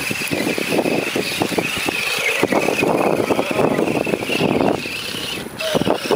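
Battery-powered RC scale crawler's motor and gears whining steadily as its tyres churn and splash through a muddy water pit. The whine drops out about five and a half seconds in.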